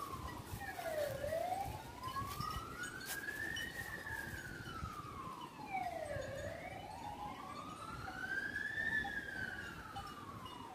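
A siren wailing, its pitch gliding slowly up and down about once every five seconds.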